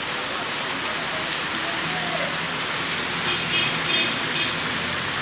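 Heavy rain pouring onto a flooded road, a steady hiss of falling water. A passing vehicle's engine hums underneath from about two seconds in, and a quick run of high beeps sounds near the end.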